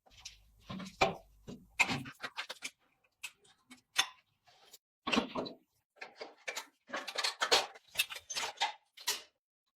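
Irregular clicks, clinks and knocks of hand tools working on metal, some in quick runs with short silent gaps between them, as the rusty handlebars and cables are taken off a Honda 70 motorcycle.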